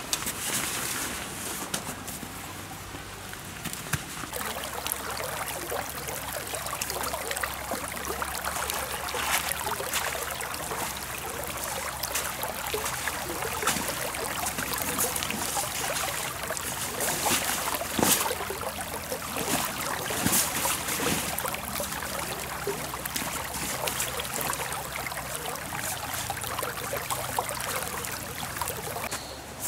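Creek water trickling steadily, with scattered rustles and knocks from a tarp and groundsheet being handled.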